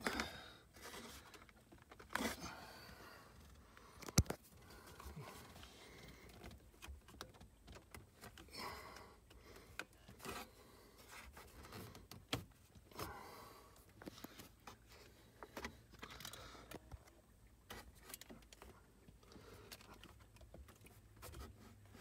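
Hands working in the plastic lower dash panel, fitting a replacement flasher relay and its harness connector: scattered scraping, rustling and small clicks, with one sharp click about four seconds in.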